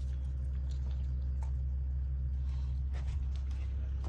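A steady low hum, like a motor or engine running, with a few faint light clicks and taps.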